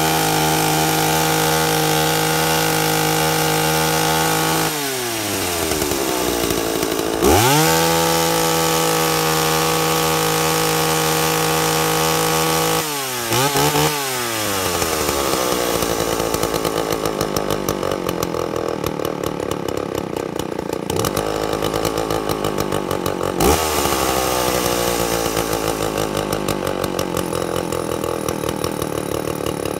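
Large two-stroke chainsaw revved unloaded to full throttle and held for about five seconds, twice, each time dropping back. After a quick blip it settles to a lumpy idle, with one more short blip near the end. The free-running top end sounds 'really, really fat': a deliberately rich high-speed carburetor setting.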